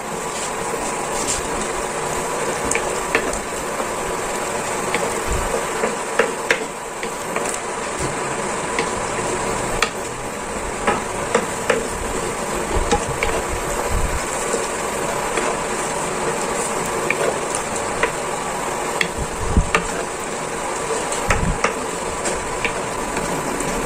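Wooden spatula stirring a thick cream sauce with chunks of chicken in a nonstick frying pan, with scattered light clicks and scrapes against the pan, over a steady simmering hiss.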